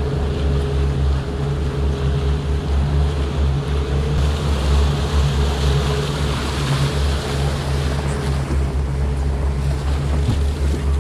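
Twin Honda 90 hp four-stroke outboard motors running steadily under way, a constant drone with a thin whine, over the rush of wake water and wind.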